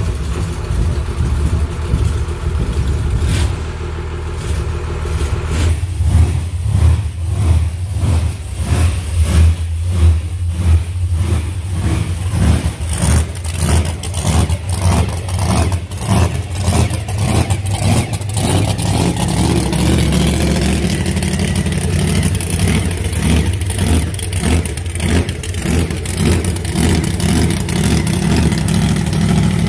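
Monster truck engines running and being revved as the trucks are driven, a steady low engine note throughout.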